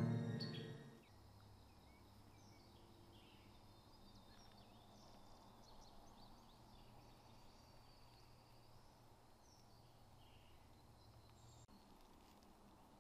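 Music fading out within the first second, leaving faint woodland ambience with scattered small bird chirps and a low steady hum that stops suddenly near the end.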